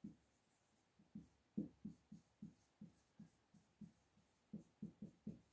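Faint strokes of a marker pen writing on a whiteboard, a quick irregular run of short scratches and taps, about three a second.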